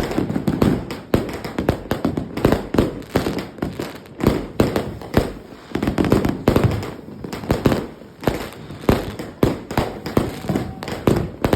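Fireworks finale board going off: a rapid, irregular string of loud bangs and pops from shells and reports, several a second with no break.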